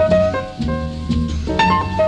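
Instrumental background music: a melody of short notes over a low bass line.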